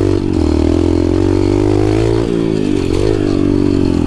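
Dirt bike's single-cylinder engine running hard under changing throttle while riding a trail. Its pitch rises and falls, dipping briefly about two seconds in and again about three seconds in.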